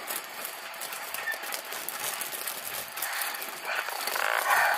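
Paper rustling and being handled over a steady hiss, with a louder rustle near the end.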